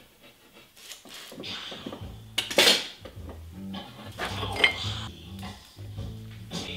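Workshop handling sounds: a few separate knocks and a short metallic clink, the loudest knock about two and a half seconds in, as a drawknife and a wooden ash tiller are handled on a workbench.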